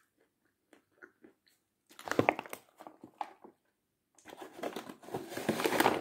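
Crunching bites and chewing of a lump of edible chalk: faint chewing clicks, then loud crunching about two seconds in. From about four seconds the chalk's paper bag crinkles and rustles steadily.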